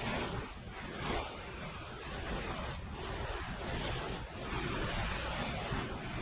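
Surf washing in on a beach, with wind buffeting the microphone.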